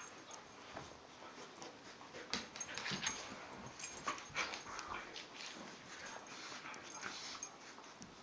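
Two small dogs play-wrestling on a rug: irregular short scuffling, mouthing and dog noises, busiest and loudest in the middle.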